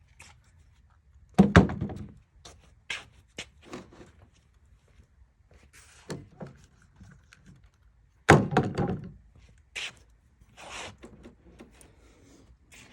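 Heavy wooden knocks and thunks from the screwed-together 4x4 studs being handled and set down. Two loud thuds, one about a second and a half in and one about eight seconds in, with lighter knocks and taps between them.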